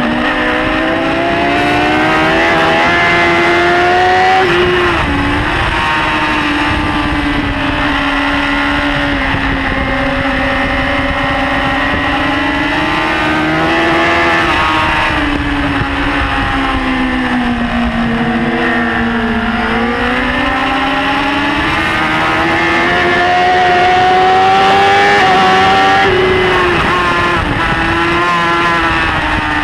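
BMW S1000RR's inline-four engine running at high revs under race load, its pitch rising and falling with throttle and gear changes. It dips lowest about twenty seconds in, then climbs to its highest a few seconds later.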